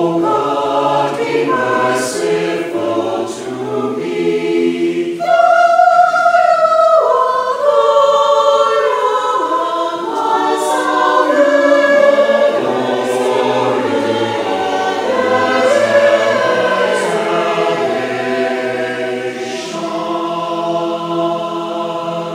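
Mixed church choir of men and women singing a hymn in parts, swelling louder about five seconds in.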